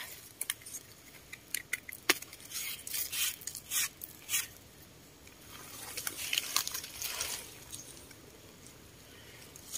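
Close handling sounds: scattered small clicks and crackles of dry leaf litter while a mushroom stem is trimmed with a small knife, then a stretch of soft rustling about six to seven seconds in.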